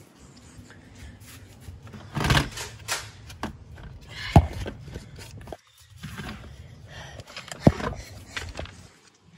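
Rustling, shuffling and scattered small knocks from a body-worn camera moving with its wearer. Two sharper knocks stand out, about four and a half seconds in and again near eight seconds.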